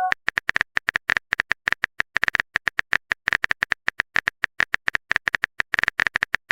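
Keyboard typing sound effect: a rapid, uneven run of short clicks, about eight to ten a second with brief pauses, as a chat message is typed out.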